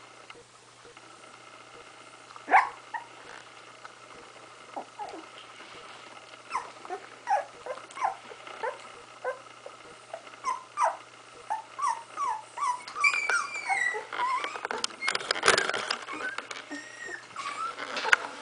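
Sixteen-day-old puppy whimpering in short, high squeaks, few at first, then coming thick and fast. A brief loud rustle about fifteen seconds in.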